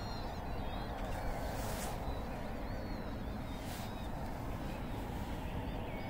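Faint, high bird calls now and then over a steady low background rumble.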